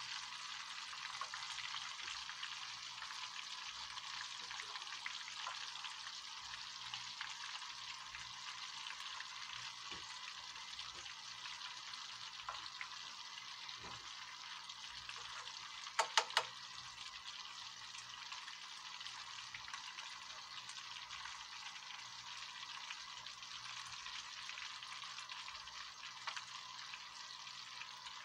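Breaded fish fillets deep-frying in a pan of hot oil: a steady sizzle, with a quick burst of sharp clicks about halfway through.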